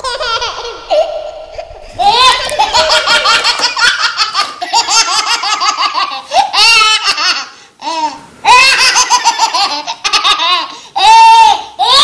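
A small child laughing in high-pitched peals, much louder from about two seconds in, with brief pauses in the second half.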